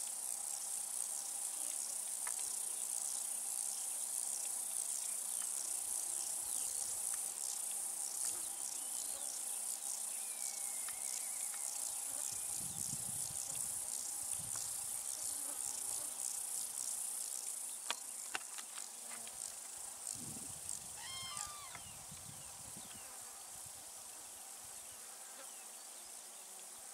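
A dense chorus of field insects: a steady high chirring with a fast, even pulse. About three quarters of the way through comes a short series of chirping notes.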